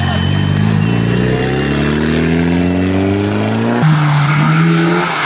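Mitsubishi Lancer Evolution rally car's turbocharged four-cylinder engine accelerating hard out of a corner, its note rising steadily for about three and a half seconds with a thin high whine above it. Near the end it cuts abruptly to a steadier engine note from another car.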